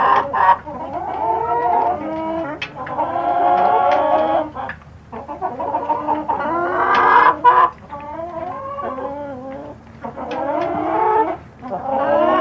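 A flock of chickens clucking, many calls overlapping almost without a break, with short lulls about halfway through and near the end.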